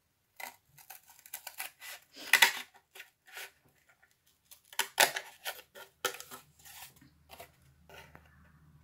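Scissors snipping through cardboard in a series of short, irregular cuts, the loudest about two and a half and five seconds in.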